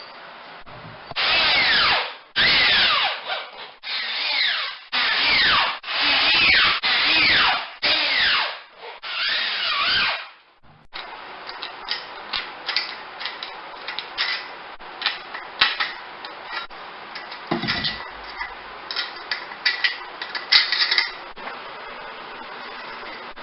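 Power drill driving screws through metal drywall corner bead: about seven short whining bursts that drop in pitch, followed by a run of scattered clicks and light knocks.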